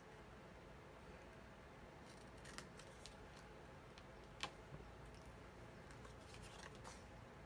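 Small craft scissors snipping scored designer series paper, cutting out small notches: a handful of faint, crisp snips, the sharpest about four and a half seconds in.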